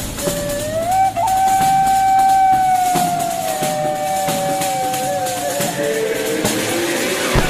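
Background music: one long held, pitched melody note that bends up about a second in and slides down around the middle and again near the end, over light rattling percussion.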